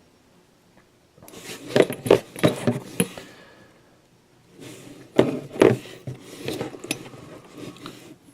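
Glass radio vacuum tubes clinking and clattering as they are handled in a box, in two runs of quick knocks, the second starting about halfway through.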